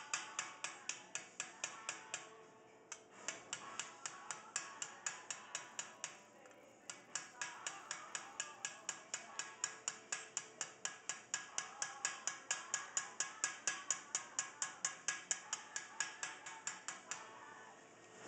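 Light hammer blows tapping a sheet-metal leaf over a stake held in a vise, in a steady run of about four sharp taps a second. The taps pause twice briefly and stop near the end as the leaf is repositioned during repoussé shaping.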